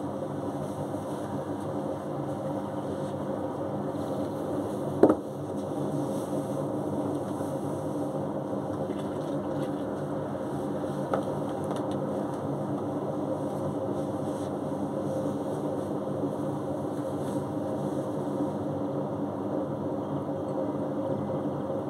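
Beko front-loading washing machine running in test mode, a steady motor hum as the drum turns. One sharp knock about five seconds in and a fainter click about halfway through.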